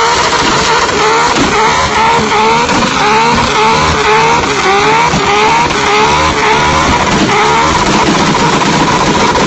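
Tuned Toyota Supra doing a burnout: rear tyres spinning and squealing on the pavement while the engine is held at high revs, its pitch sweeping up again and again about twice a second. Loud throughout.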